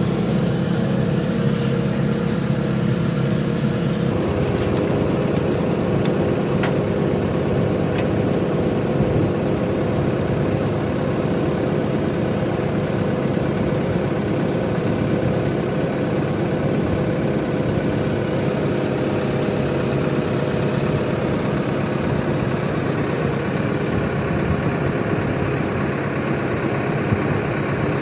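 JCB backhoe loader's diesel engine running steadily at idle, its tone shifting slightly about four seconds in.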